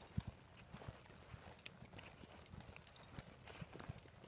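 Faint hoofbeats of a horse cantering on soft arena dirt, a run of dull thuds.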